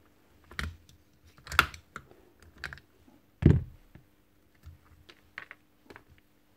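Parts of a cordless SDS hammer drill being handled and fitted into its opened gearbox housing: a string of clicks and knocks, the loudest a dull knock about three and a half seconds in.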